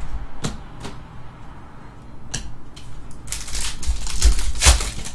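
Trading cards being handled and flipped through by hand: a few sharp clicks of card stock, then about two seconds of rustling, sliding and snapping cards, loudest near the end.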